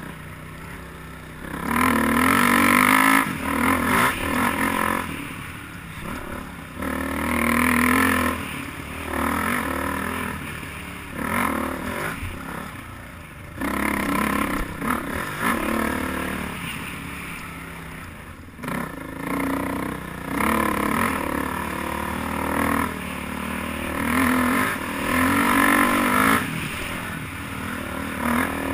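Dirt bike engine riding a forest trail, rising and falling as the throttle is opened and closed, with about eight louder revving surges between quieter stretches.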